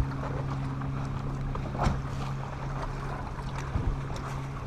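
Steady hum of a bass boat's bow-mounted electric trolling motor over wind and water noise, with a few light knocks, the loudest about two seconds in.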